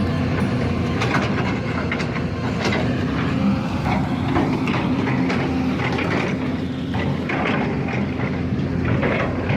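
Komatsu excavator running: a steady low diesel engine hum with frequent irregular metallic clanks and knocks from the working machine.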